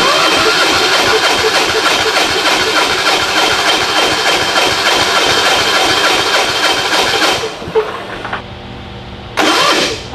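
Electric starter cranking the Titan 7500 diesel generator's engine over without it firing, for about seven and a half seconds, then again near the end. The engine is being turned over with a fuel fitting cracked open to bleed air from the fuel line.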